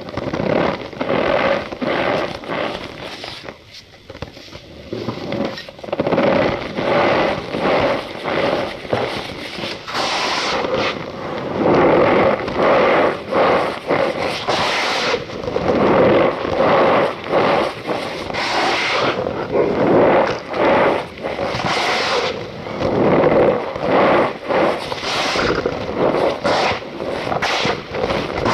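Cornstarch powder being pressed and squeezed, giving a dense, continuous run of squeaks and crunches.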